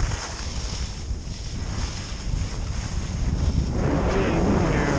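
Wind buffeting a skier's camera microphone while skiing downhill, with skis hissing over the snow; the hiss swells near the end, as in a turn.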